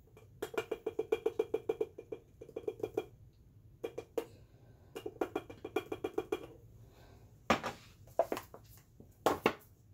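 Old Bay seasoning tin shaken over a glass mason jar: two runs of quick, rhythmic rattling taps, several a second, as the seasoning is shaken out into the jar. A few separate knocks follow near the end.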